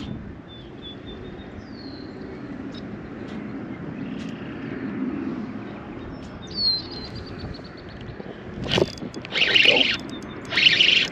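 Outdoor pond ambience: a steady low rumble of distant traffic with a few short bird chirps. Near the end there is a sudden sharp sound, then three loud rushing bursts about a second apart as a hooked bass is brought in.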